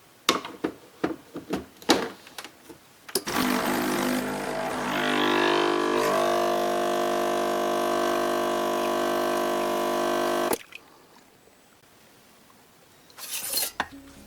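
A run of light clicks and taps, then a small electric kitchen appliance motor running for about seven seconds, its hum settling to a steady pitch before it cuts off suddenly.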